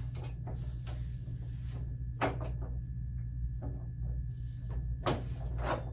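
Knocks and clatters of a small metal-framed desk being handled and fitted together, a sharp one about two seconds in and a couple more near the end, over a steady low hum.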